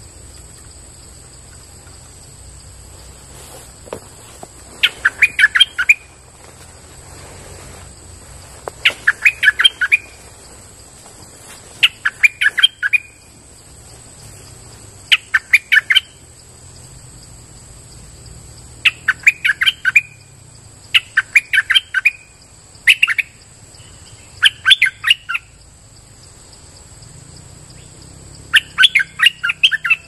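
Stripe-throated bulbul singing: short bursts of rapid, quick-fire notes, each about a second long, repeated about every two to four seconds.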